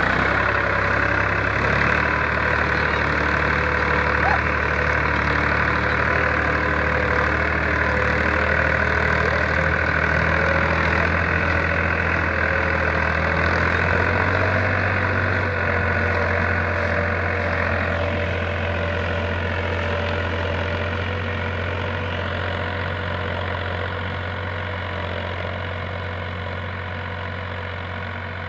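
Powertrac Euro 47 tractor's three-cylinder diesel engine running steadily under the load of a mouldboard plough. The drone grows gradually quieter over the last ten seconds.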